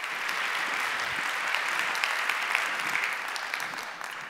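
Audience applauding: a dense patter of many hands clapping that dies away near the end.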